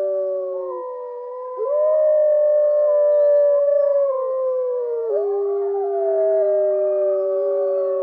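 A pack of wolves howling in chorus: several long howls overlap at different pitches, some gliding up and down. The chorus swells about a second and a half in, and another howl joins around five seconds.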